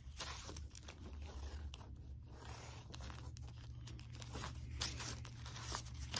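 Bagged and boarded comic books being flipped through in a cardboard short box: the plastic sleeves and boards rustle, crinkle and scrape against each other in quick, irregular strokes as each book is pulled up.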